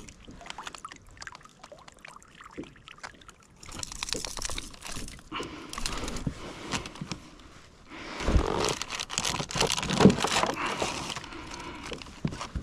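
Handling noises in a kayak: scraping, rustling and knocks as gear and a freshly landed redfish are handled. Faint at first, busier and louder from a few seconds in, with the loudest knocks in the second half.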